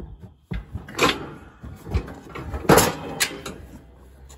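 Metal clanks and rattles from a steel cattle chute and the calving chains on a calf's legs: several sharp knocks, the loudest about a second in and near three seconds.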